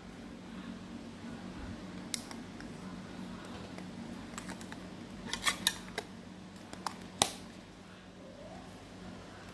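Clicks and snaps of a California Scents air freshener tin being handled: its metal lid and black plastic vented lid are pressed and snapped onto the can. A quick run of clicks comes about halfway through, the sharpest click a little later, over a steady low hum.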